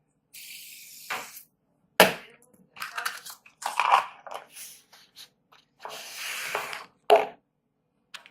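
Handling noises: objects picked up and moved by hand, with a few sharp clicks and knocks among bursts of rustling and scraping.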